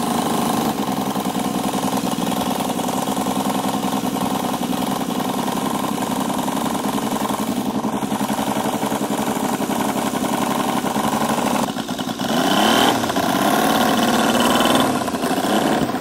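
Saito FG-19 R3 three-cylinder four-stroke gasoline radial engine in a model airplane, running steadily at idle through a custom exhaust collector. About three quarters of the way in it is revved up and down a few times, getting louder, then drops back toward idle.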